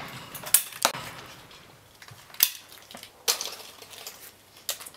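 About five sharp metallic clicks and clacks, spread out with pauses between them, as an over-and-under shotgun's break action is opened and handled between shots.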